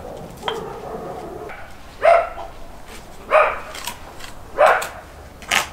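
Dog barking four times, a little over a second apart.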